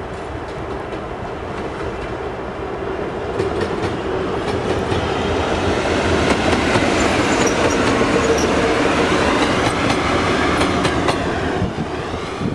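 TEM18 diesel shunting locomotive passing close by: its engine running steadily, with the wheels clicking over rail joints. The sound grows louder to a peak in the middle as it goes past, then the pitch falls and it fades as it moves away near the end.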